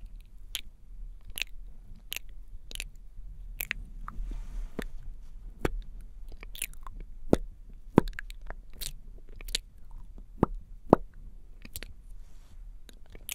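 Wet mouth and lip sounds close to the microphone: irregular sticky clicks and smacks as lips coated in glossy lip tint part and press together, with a few louder smacks in the second half.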